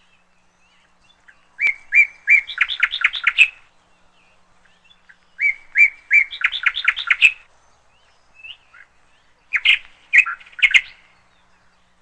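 Canary singing three short song phrases about four seconds apart, each a few clear notes running into a fast trill; the last phrase is shorter.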